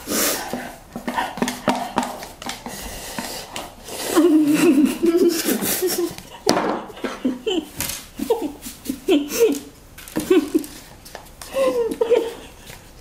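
Women laughing in fits while eating very spicy instant noodles, with slurping and mouth noises in the first few seconds and bursts of laughter from about four seconds in.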